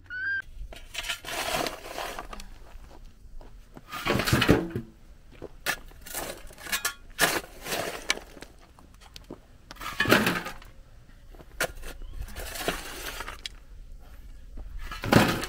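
Spade scraping into loose stony soil and the stones clattering as each shovelful is tossed, in a series of separate scrapes and clatters every second or two.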